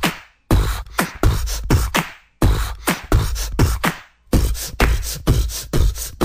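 Song with a heavy bass beat and sharp, fast drum hits, in phrases that break off into brief silent gaps about every two seconds.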